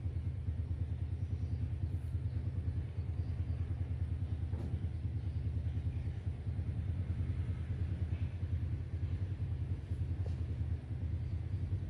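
A motor running steadily: a low rumble with a fast, even pulse.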